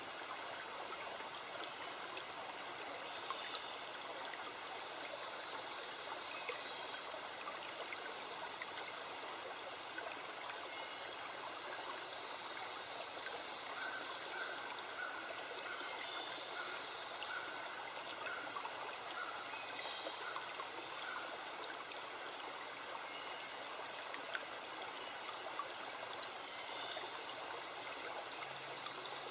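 Steady rush of a flowing forest stream, with a few faint short chirps over the water in the middle.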